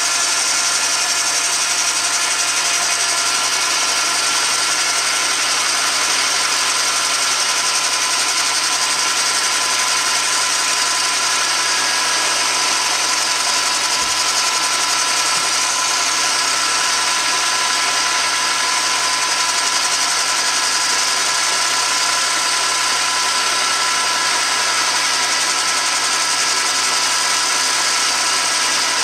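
Metal lathe turning a weld-built-up steel shaft with an insert taking a steady cut: an even machine hum and whine with cutting hiss, the lathe labouring under the cut.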